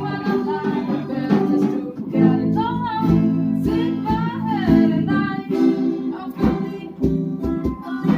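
A song with acoustic guitar strumming and a voice singing.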